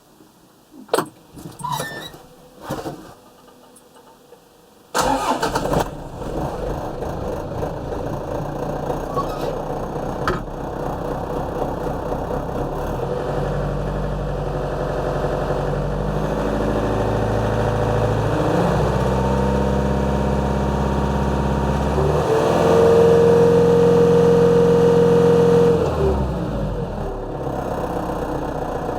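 A few knocks, then the Yanmar 4TNE88 four-cylinder diesel engine of a Yanmar US540 tractor cranks and starts about five seconds in and runs. Its speed is raised in steps, held highest for a few seconds, then dropped back to idle near the end.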